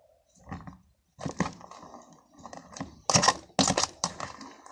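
Fluffy slime of clear glue, shaving foam and borax activator being squeezed and kneaded by hand: irregular squishing and crackling, with a few louder crackles about three seconds in.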